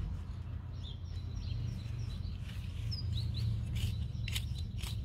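Small hand trowel scraping and crunching into garden soil a few times near the end, with birds chirping throughout over a steady low rumble.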